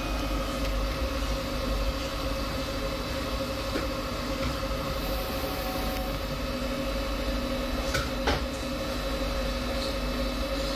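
Two Trees SK1 3D printer's stepper motors and three Z-axis lead screws moving the bed during its automatic Z-axis calibration: a steady mechanical hum with several constant tones, and a couple of short clicks about eight seconds in.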